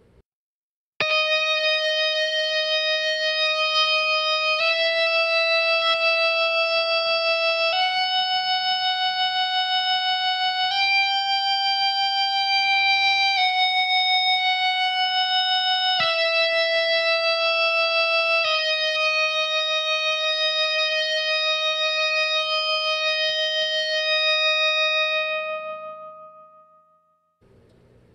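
Electric guitar played with a TC Electronic Aeon handheld sustainer, which drives the strings into endless sustain, giving smooth, bowed-sounding single notes. A slow melody of long held notes starts about a second in, steps up in pitch and back down, each note held a few seconds. The last note is held longest and fades out near the end.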